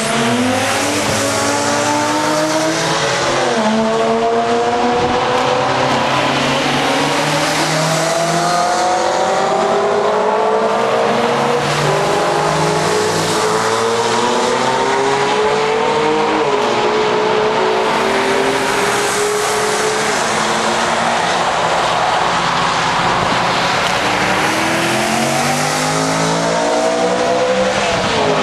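Several track cars accelerating hard on a circuit, their engines rising in pitch and dropping back at each gear change, over and over, with more than one engine heard at once.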